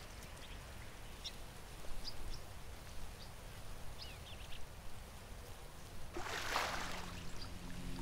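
A few faint, short bird chirps over quiet outdoor ambience, then about six seconds in a brief gush of water as an African elephant squirts water from its trunk into its mouth while drinking. Soft music tones begin near the end.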